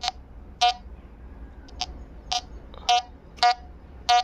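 Vishco Gold Hunter metal detector giving about seven short beeps, irregularly spaced roughly half a second apart, as its coil sweeps over a buried target.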